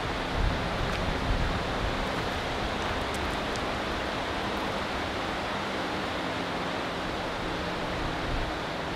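A fast river rushing steadily below.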